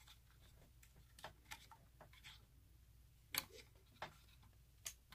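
A handful of faint, scattered clicks and taps as a thumb works open a small plastic vent flap on a 1/6-scale robot figure, the sharpest click about three and a half seconds in.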